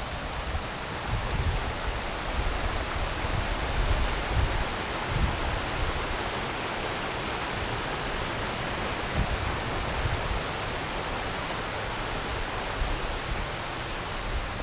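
Mountain creek rushing over rocks: a steady, even hiss of flowing water. Low rumbles of wind buffeting the microphone come and go underneath, most in the first few seconds.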